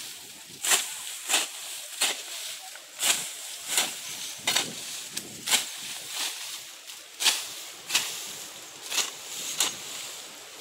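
Hoe chopping and scraping through weeds and dry soil: a regular stroke about every two-thirds of a second, each with a rustle of grass.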